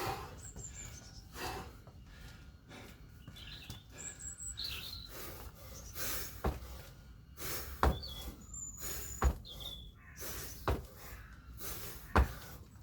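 Five heavy thuds about a second and a half apart in the second half: feet landing from kettlebell jump squats. Birds chirp with short high calls throughout.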